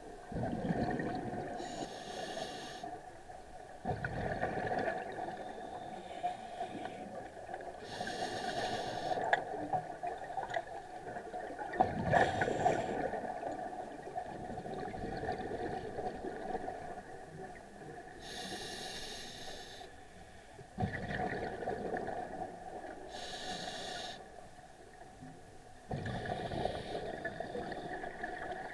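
Scuba diver breathing through a regulator underwater: a short hissing inhalation alternating with a louder bubbling exhalation, about every five seconds.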